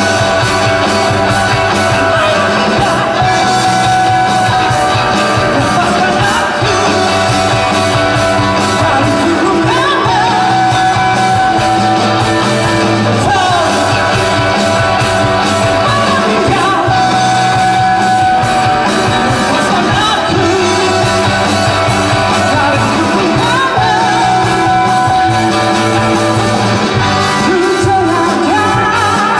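Rock band playing live, with a lead singer over the full band and a steady beat.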